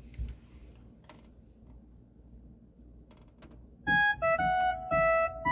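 Organ playing the KakaoTalk voice-call ringtone melody, short held notes that start about four seconds in, after a few faint clicks.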